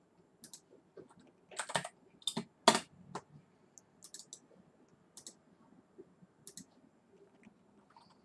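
Computer mouse clicks and keyboard keystrokes from renaming folders on a PC, in short separate ticks. A few louder key presses come close together between about one and a half and three seconds in.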